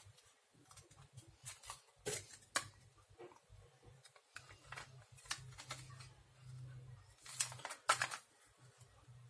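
Scattered light clicks and rustles of small parts being handled, louder clusters about two seconds in and near eight seconds, over a faint steady low hum.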